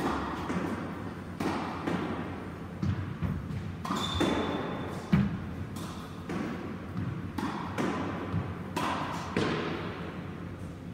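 Squash ball being hit in a solo rally: sharp racket strikes and thuds of the ball off the front wall and floor, echoing in the court, roughly one a second at an uneven pace. A short high squeak about four seconds in.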